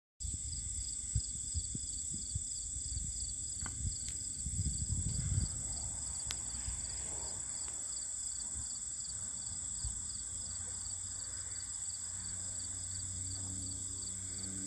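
Insects chirring in the fields: a steady high buzz with a regular pulsing chirp beneath it, over a low rumble. A faint low engine drone builds near the end.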